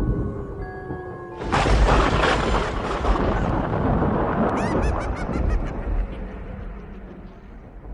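Horror sound effects: steady musical tones broken off about a second and a half in by a sudden loud noisy crash that slowly dies away, with a quick run of high chirping squeals partway through.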